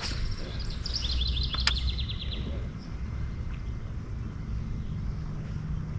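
A songbird sings a quick run of high repeated chirps lasting about a second and a half, over a steady low rumble, with a single sharp click partway through.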